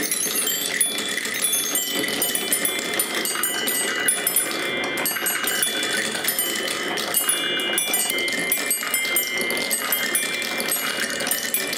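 Glass marbles rolling and dropping through a Quadrilla wooden marble run: a steady, dense patter of quick clicks and clinks as they knock against the wooden rails, the plastic spiral tower and each other, with short high ringing notes from glass striking glass.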